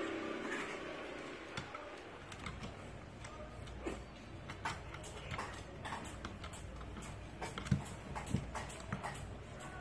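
Pug puppy's claws clicking and scraping on a wooden ledge as it scrambles to climb out, an irregular run of sharp ticks and scratches that grows busier in the second half.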